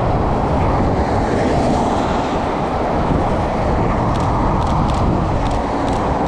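Steady traffic noise of cars passing on a wet road, a constant hiss over a low rumble. A few faint clicks come about four to six seconds in, from the camera's shutter.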